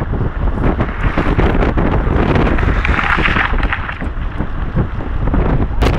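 Wind buffeting the microphone of a camera held on a moving car, over the steady rumble of the car towing the snowboarder. A brighter hissing rush swells briefly about halfway through.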